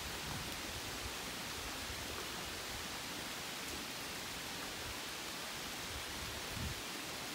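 Steady rain falling on forest foliage, an even hiss with no distinct drops standing out.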